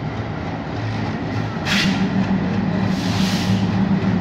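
WDG3A diesel-electric locomotive's ALCO 251 V16 engine running as it hauls a freight train past, a steady low hum that grows louder about a second and a half in. Two short hisses come over it, the second longer.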